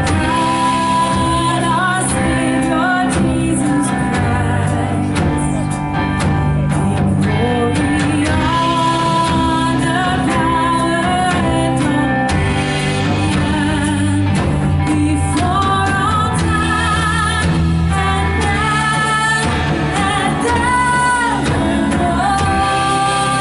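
Live worship band playing a song, a singer's melody carried over drums and sustained band accompaniment.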